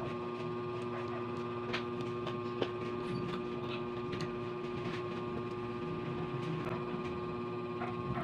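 Steady electrical hum, with a few sharp clicks and soft mouth sounds of someone chewing crispy deep-fried pork belly (bagnet).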